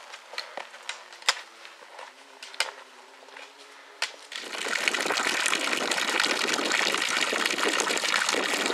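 Scattered sharp taps of trekking poles and boots on a stony trail. From about four seconds in, a loud, steady rush of gushing water takes over.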